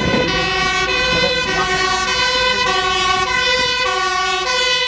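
Fire engine's two-tone siren, stepping between a high and a low note about every half second as the truck approaches at speed, cutting off at the very end.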